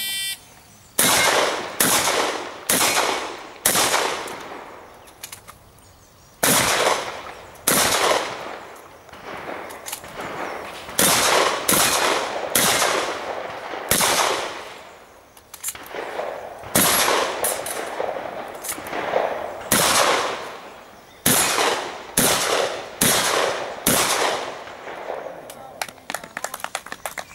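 A shot timer's start beep, then about twenty shotgun shots fired in quick strings of three or four, with pauses of a second or two between strings.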